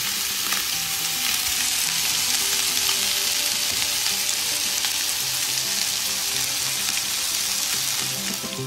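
Chicken pieces shallow-frying in hot oil, a dense steady sizzle. This is a light pre-fry that firms the pieces so they don't break up in the curry.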